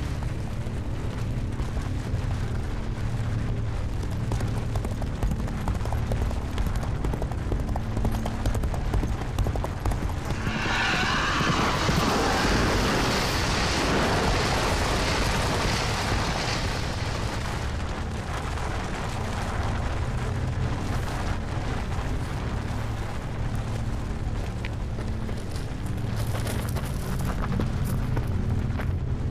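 Horse's hooves galloping over a steady low rumble, with a loud rushing noise swelling about ten seconds in and fading a few seconds later.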